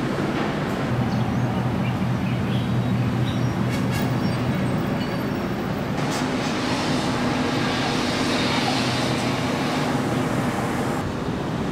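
Steady low engine rumble with a constant hum, under a haze of outdoor noise that grows brighter about halfway through.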